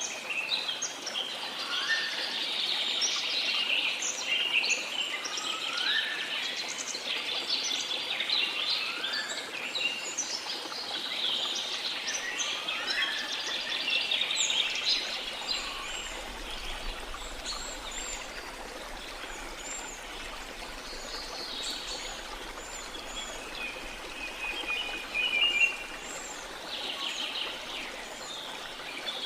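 Tropical forest birds calling together, many overlapping chirps with a few rising whistles, over a steady rush of falling water. The birdsong is busiest in the first half and thins out after the middle.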